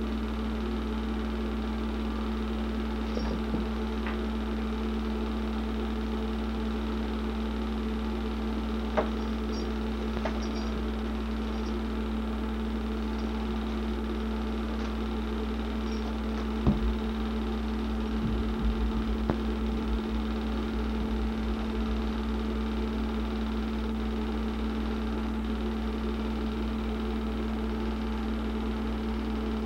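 Steady mechanical hum and whir of a film projector's motor and fan running, with a few faint clicks and knocks scattered through.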